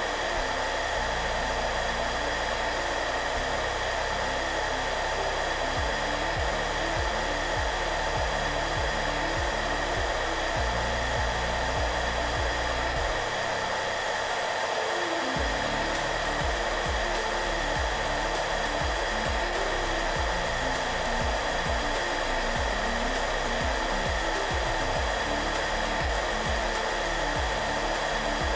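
Hair dryer blowing steadily, a constant airy rush with a faint motor hum. Soft music of low held notes that change every few seconds runs underneath it.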